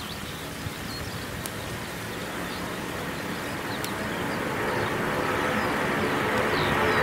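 Jet airliner engines at takeoff power, a rushing roar that grows steadily louder as the aircraft comes closer, with small birds chirping faintly.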